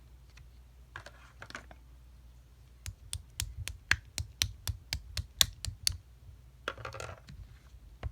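Clear, colourless slime being pressed and squished by hand. From about three seconds in to six seconds it gives a quick, even run of sharp clicking pops, about four a second. Softer squishing and stretching comes about a second in and again near the end.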